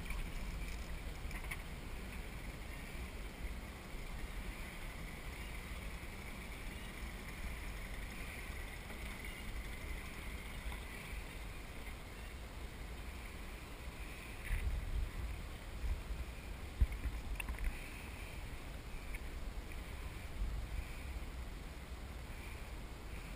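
Wind on the microphone and water lapping against a kayak's hull: a steady low rumble with a few knocks about fifteen and seventeen seconds in.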